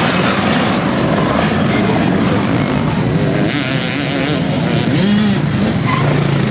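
Several enduro dirt bike engines running at once, their pitches wavering as riders work the throttle through a tight corner, with one bike revving up and back down about five seconds in.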